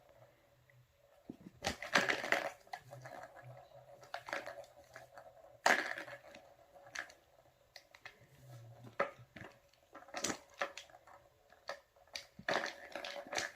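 Plastic balls rattling and rolling in the tracks of a ball tower cat toy as a kitten swats at them, in irregular bursts of clatter with quieter spells between.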